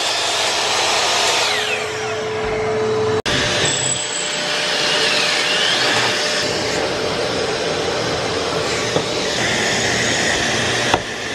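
Drill boring pocket holes in plywood through a pocket-hole jig, with a dust extractor running steadily alongside. The sound drops out for an instant about three seconds in.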